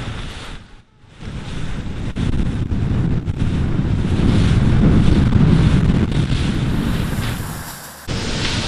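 Strong wind buffeting the microphone over the wash of the sea. It builds to its loudest about halfway through and eases near the end, with a brief drop about a second in.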